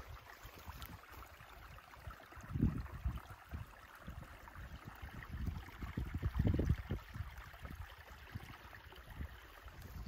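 Outdoor ambience: wind buffeting the microphone in a few irregular gusts over a faint steady hiss.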